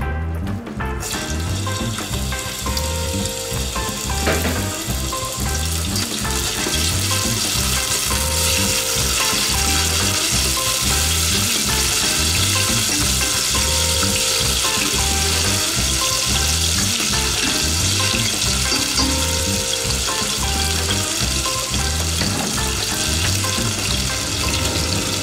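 Chicken pieces sizzling in hot oil in an enamel pot, the sizzle starting about a second in as the meat drops in and growing fuller from about six seconds as it is stirred. Background music with a steady beat runs underneath.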